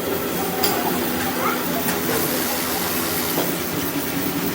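Steady machinery noise with a low hum underneath and a few light clicks.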